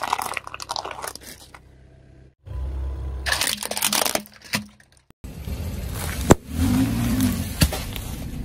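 A car tyre rolling over and crushing plastic items in three quick cuts. First a bagged set of plastic clothespins crackles and crunches. Then a plastic toy train crunches and breaks, and last a pile of small plastic beads is run over with a low rumble and a few sharp cracks, the loudest about six seconds in.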